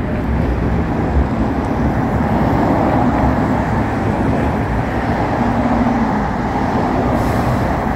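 Diesel engine of a tower ladder fire truck running low and steady as the truck creeps forward at close range. It is heard through a window, so the sound is muffled.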